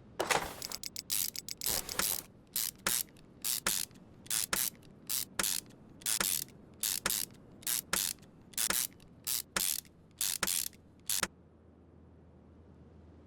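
A string of short hissing spray bursts, about twenty in quick succession, some brief squirts and some slightly longer, stopping about eleven seconds in.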